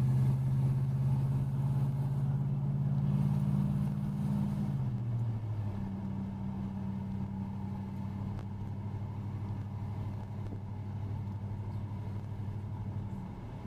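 A 1984 Chevy Caprice's 350 small-block V8 running steadily. About five seconds in its note drops to a lower, slower pitch as the revs settle, and it runs on more quietly after that.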